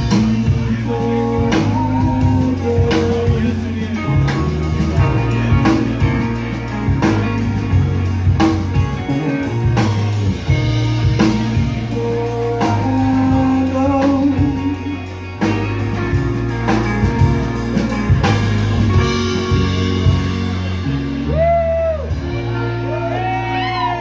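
Live rock band playing: two electric guitars, bass guitar and drum kit, with a lead guitar line over steady drum hits. Near the end the band holds a closing chord while guitar notes bend up and down in swoops.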